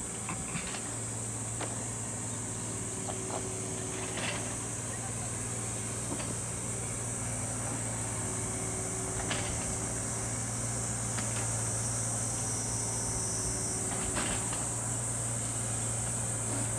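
Cicadas droning steadily in high-pitched chorus, over a steady low hum and a few faint ticks.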